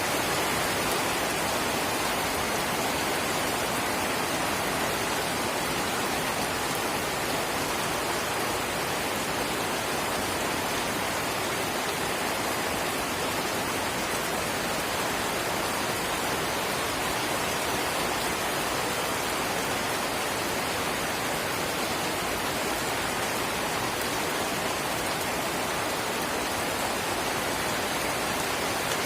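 Light rain falling in a steady, even hiss, with no single drops standing out.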